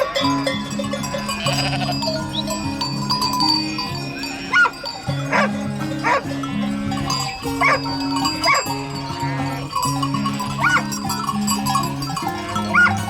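A farm animal calling in about seven short cries, a second or two apart, over background music of sustained low chords.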